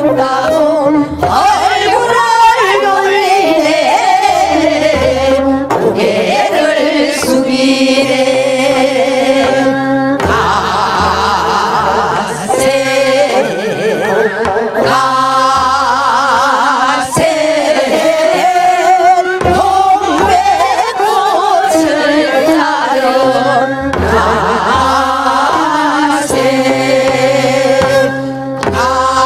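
Women singing a Korean minyo (folk song) into microphones, the melody full of wavering ornaments, over an accompaniment with a regular low beat.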